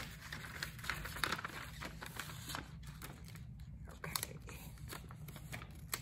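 Faint crinkling and rustling of a plastic transfer sheet and blue painter's tape being handled and pressed onto a lamp, with scattered small clicks.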